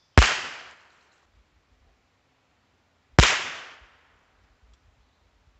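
Two .22 LR rifle shots about three seconds apart, heard from downrange beside the target, each a sharp crack with a short fading tail.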